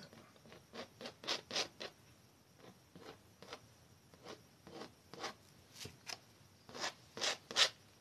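Palette knife stroking oil paint across a stretched canvas: a series of short scraping strokes, the last few near the end the loudest.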